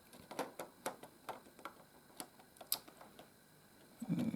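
Small hard plastic clicks and taps of Lego pieces and light-kit parts being handled and pressed into place, about a dozen separate clicks at uneven intervals.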